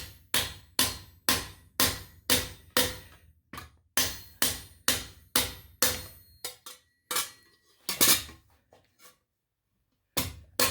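Hammer blows on the steel fan of a knee armour piece against an anvil, about two to three strikes a second, each with a short metallic ring, reshaping the distorted plate. The strikes stop for about a second near the end, then start again.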